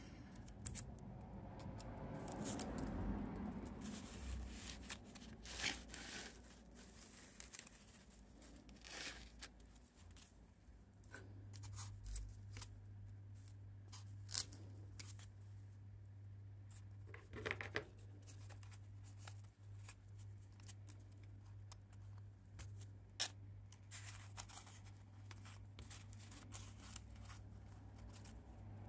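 Faint handling sounds: a foam sheet and pinning paper rustling and being smoothed by hand, with scattered small clicks and scrapes. A low steady hum comes in about a third of the way through.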